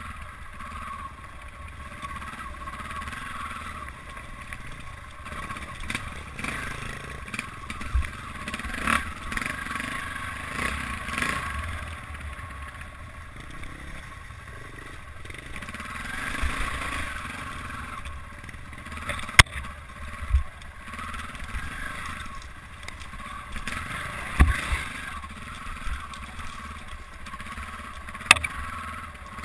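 Off-road motorcycle engine running as the bike rides over rough, rocky singletrack, the throttle rising and easing with the terrain. A few sharp knocks break through near the middle and again near the end.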